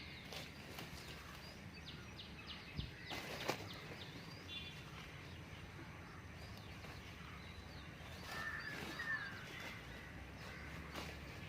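Small birds chirping, with a brief trill about a second and a half in and more chirps near the end, over faint outdoor background noise. Scattered short knocks or scrapes come in between, the loudest about three and a half seconds in.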